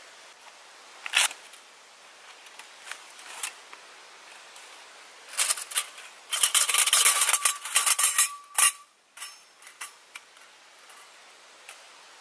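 Bushbox XL folding steel stove being unfolded and its panels fitted together. A few sharp metal clicks come first. From about five and a half to nine seconds in there is a dense run of metallic clinking and scraping, with a brief ring.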